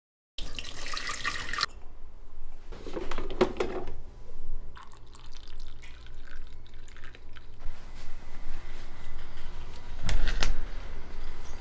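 Liquid being poured and dripping in short spells, with small clicks in between, then a sharp knock with a low thump about ten seconds in.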